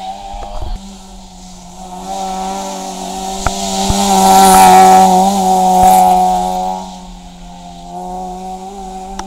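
Citroën Saxo rally car's engine held at high revs as it comes up, passes close by and pulls away round a bend, loudest about halfway through, with a few sharp cracks as it goes past.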